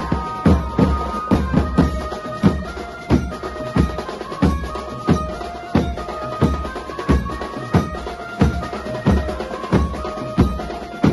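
Street procession band music: barrel drums (dhol) beaten with sticks and brass cymbals keep a steady beat, a heavy stroke about every two-thirds of a second with lighter strokes between, under an amplified melody line played from loudspeakers.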